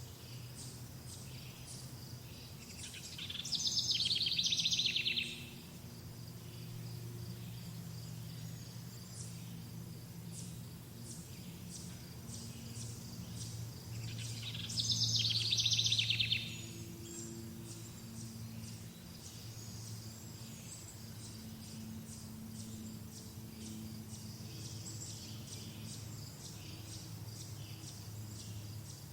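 Summer birdsong ambience: a songbird sings two loud, rapid trilling phrases about ten seconds apart. Under it run a steady, high pulsing chirr of insects and a faint low rumble.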